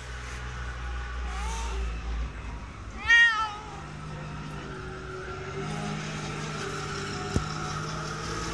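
Domestic cat meowing: a soft, short meow about a second and a half in, then a loud, full meow about three seconds in. Afterwards a steady low hum continues, with a single sharp click near the end.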